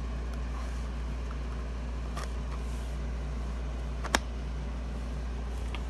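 Plastic buttons and case of a Radio Shack weather radio clicking under a hand, with one sharp click about four seconds in and a couple of fainter ones, over a steady low hum.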